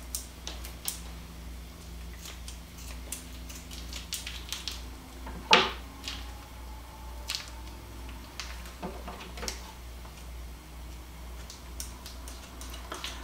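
Kitchen scissors snipping and working through the plastic wrapper of a tube of ground sausage, with scattered clicks and crinkles and one louder snap about five and a half seconds in.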